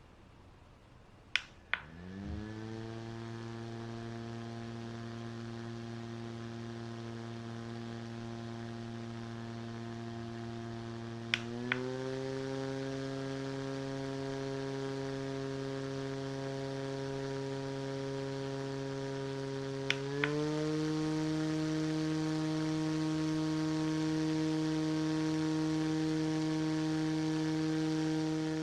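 Small cordless portable fan: a double click of its button, then the motor spins up to a steady pitched hum with a hiss of moving air. Two more double clicks, one near the middle and one about two-thirds of the way through, each step it up to a faster speed, the hum rising in pitch and getting louder each time.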